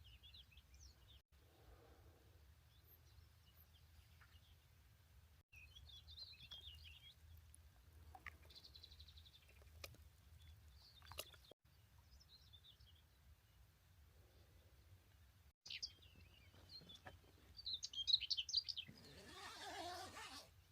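Faint scattered bird chirps and calls over a low steady hum, broken by a few brief dropouts. A louder noisy sound comes in near the end.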